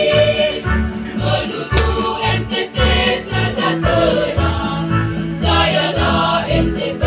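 A school choir singing together, with a steady low beat underneath.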